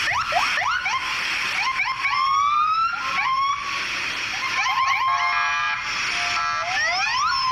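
Several police car sirens sounding together from a convoy, overlapping quick rising whoops with longer falling wails. A steady stepped electronic tone joins in about five seconds in.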